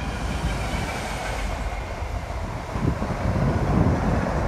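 Class 66 diesel freight locomotive passing through with a train of covered car-carrier wagons. The locomotive's engine is running and the wagon wheels rumble over the rails, growing louder about three seconds in.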